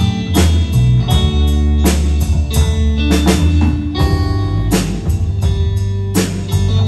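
Live band playing an instrumental passage between sung lines: electric guitars, bass guitar and drum kit, the drums keeping a steady beat.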